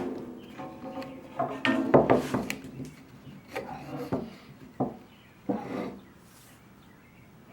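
Wooden workpieces being handled on a workbench: a series of knocks and rubbing as pieces are set down and shifted, with a brief ringing after some knocks, stopping about six seconds in.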